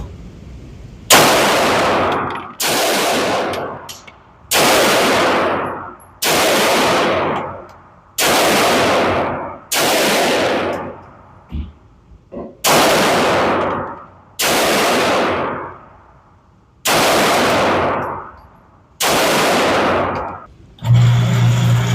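About ten gunshots fired one at a time, a second and a half to two and a half seconds apart. Each has a sharp crack and a long echo that dies away over about a second. A steady low hum comes in near the end.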